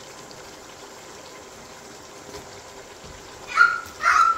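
Steady hiss from the pot of onions cooking in oil on the gas stove, then two short high-pitched shrieks from a child near the end.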